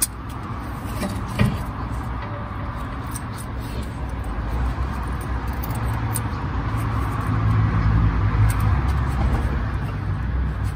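A motor vehicle passing by: a low engine and road rumble that swells to a peak about eight seconds in and then eases off. There is a single sharp click about a second and a half in, from hands working at the brake caliper.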